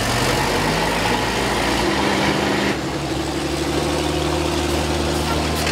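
Demolition-derby school bus engines running under load, a steady low engine drone over a broad rumble, whose pitch shifts abruptly a couple of times.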